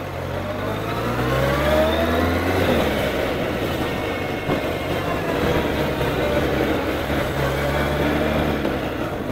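Suzuki Inazuma 1200 motorcycle's inline-four engine accelerating, its pitch rising over the first two and a half seconds, then running on under wind and road noise, settling to a steadier lower note near the end.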